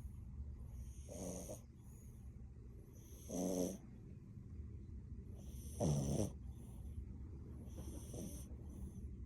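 French bulldog snoring in its sleep: four snores, one about every two and a half seconds, the middle two the loudest.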